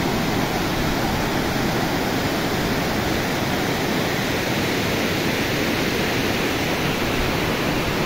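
Water pouring over a concrete dam spillway and tumbling into rapids below: a steady, even rush of falling water.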